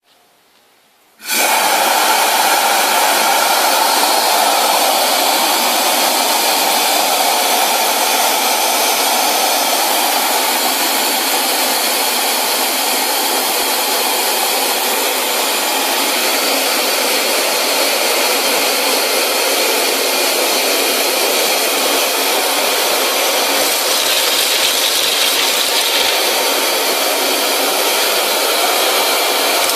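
Compressed-air wet/dry industrial vacuum cleaner switching on about a second in and running with a loud, steady rushing hiss. Near the end the hiss grows a little brighter, with faint low ticks.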